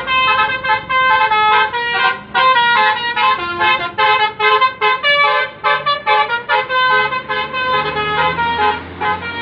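Basuri telolet musical horn on a bus playing a fast melody of short notes, several a second, with the bus engine running low underneath.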